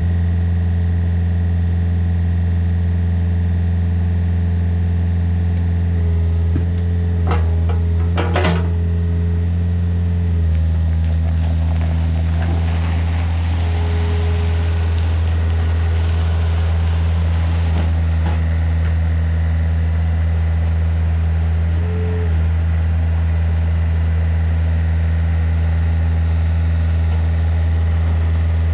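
Case CX50B mini excavator's diesel engine running steadily as the machine swings its boom and moves, with a few sharp clanks around a third of the way in and a rushing hiss for a few seconds near the middle.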